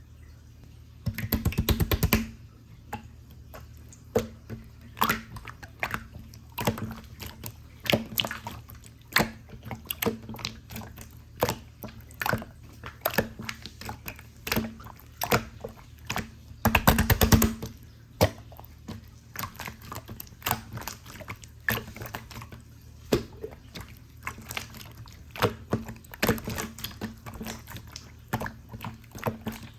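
Pink pearl slime being squeezed and pressed by hand, giving sticky clicks and small air-bubble pops at an irregular pace. Dense crackling flurries come about a second in and again around seventeen seconds in.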